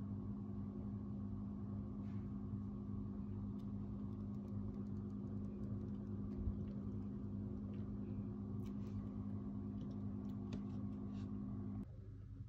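Steady electric hum of a kitchen appliance running, with a low even tone, that cuts off suddenly near the end; a few faint ticks over it.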